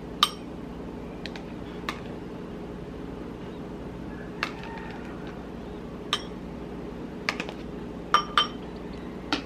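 Metal spoon scooping food and clinking against a ceramic bowl and a plastic tub: about eight short, sharp clinks at irregular intervals, two pairs close together near the end. A steady low hum runs underneath.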